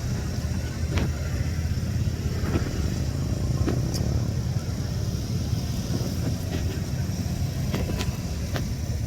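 Steady low engine rumble of an arriving ferry, with a few light clicks scattered through it.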